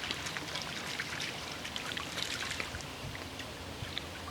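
Spod reel being wound in fast, a continuous busy whirr of gears and line with many small irregular ticks.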